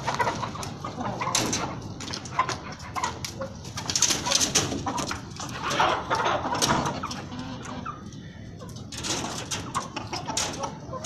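Aseel chickens clucking, with many short sharp clicks and knocks scattered through.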